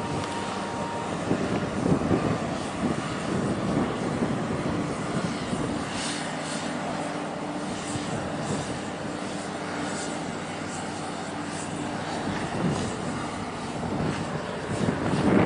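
Oil products tanker's engine and funnel exhaust running with a steady low drone as the ship passes close under way. Wind buffets the microphone near the end.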